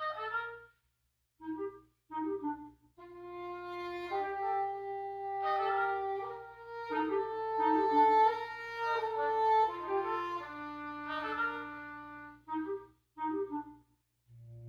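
Wind quintet playing: short detached chords, then from about three seconds in a stretch of held, overlapping notes that swell and fall. Short detached chords return near the end.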